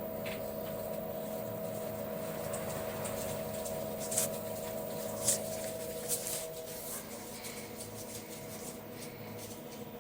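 LG 10 kg direct-drive washing machine running with its drum on two freshly replaced bearings: a steady hum with a faint whine that fades out about seven seconds in, and a few light clicks.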